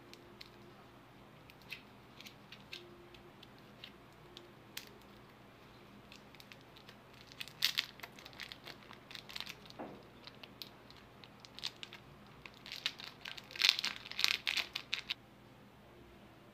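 Clear plastic lollipop wrapper crinkling in the fingers as it is pulled off a lollipop: scattered light crackles, with two louder spells of crinkling about halfway through and near the end.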